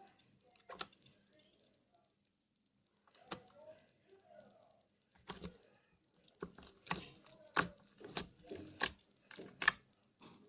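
Slime being squeezed and worked by hand, giving sharp pops and clicks: a few scattered at first, then a quicker run of about one every two-thirds of a second in the second half.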